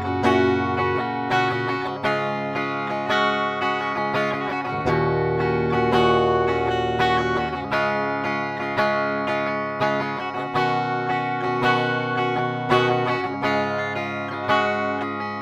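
Ibanez GRG121 SP electric guitar played on its bridge humbucker with a clean tone: chords strummed and picked about twice a second, with one chord let ring for about three seconds near the middle.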